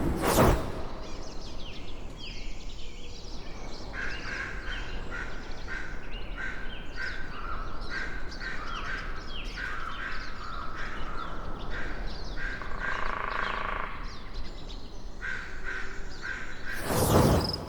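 A flock of birds calling in many short, quick chirps over a low steady ambience, with a whoosh sweeping through at the start and again near the end.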